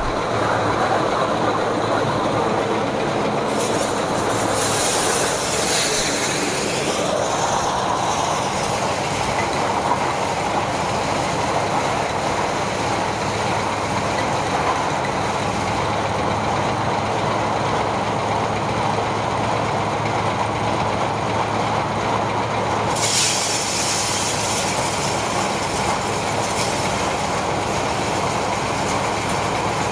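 Petrol-engine-driven rice thresher with blower running steadily while threshing rice, a loud rattling drone over a low engine hum. There are two stretches of louder hissing rattle, about four seconds in and again around 23 seconds.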